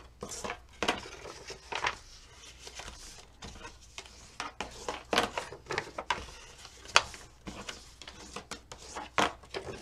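Cardstock being folded along its score lines and creased with a bone folder: irregular crinkles, taps and short scraping strokes of paper and tool against the mat.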